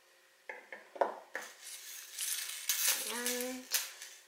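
Small iron curb chain and metal pliers clinking as a clasp's end ring is worked open by hand: a few sharp clicks about half a second in, then a jingling rattle of chain links.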